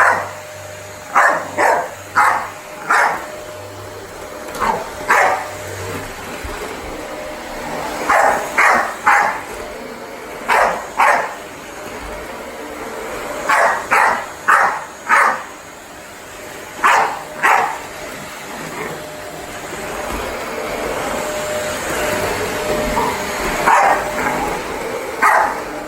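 Dog barking in quick groups of two to four, over the steady drone of a vacuum cleaner running, which grows fuller near the end.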